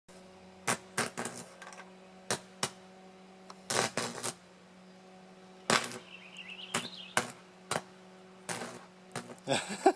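Electric arc between the graphite rods of a homemade arc furnace, fed by two rewound microwave-oven transformers, crackling and snapping in irregular bursts over a steady low electrical hum.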